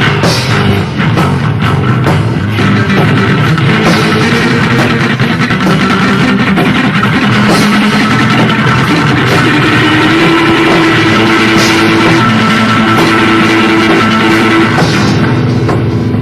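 Loud improvised rock jam played live and recorded raw: distorted electric guitar over a drum kit, with held notes in the middle of the passage.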